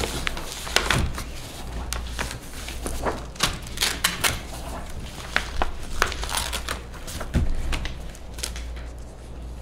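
Paper sheets and manila folders being handled and leafed through on a table, in irregular crisp rustles and crackles over a steady low hum.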